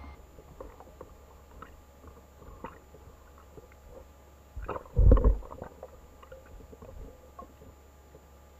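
Underwater sound picked up by a submerged camera: scattered small clicks and pops, with one loud, low thump about five seconds in.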